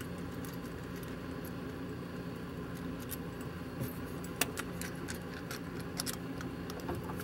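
Small steel hardware, bolts and washers, handled and clinking: scattered light metallic clicks, sharpest around the middle and near the end, over a steady low hum.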